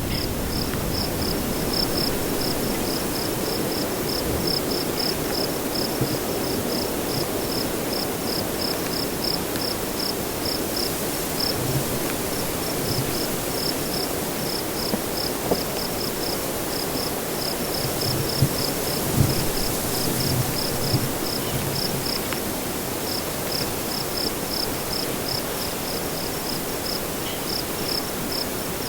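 Crickets chirping in a steady, regular rhythm of high chirps, about two to three a second, over a constant rush of wind. A few brief low thumps come about two-thirds of the way in.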